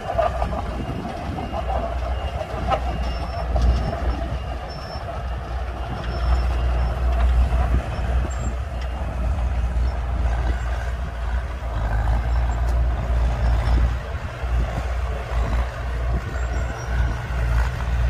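Diesel engines of small crawler bulldozers, among them a Komatsu mini dozer, running as they push sand, a steady low rumble that swells and eases.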